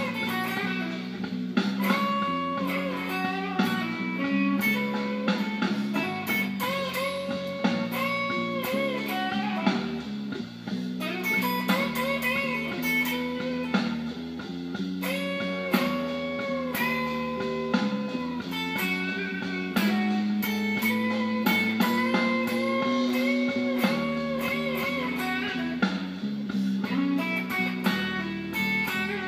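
Electric blues lead played on a Les Paul electric guitar through an amp, with held notes bent up in pitch, over a slow blues backing track with drums.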